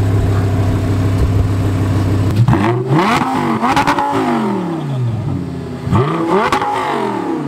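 Supercharged 2010 Audi R8 engine with a titanium exhaust idling, then revved twice. Each time the pitch climbs quickly and slides back down to idle.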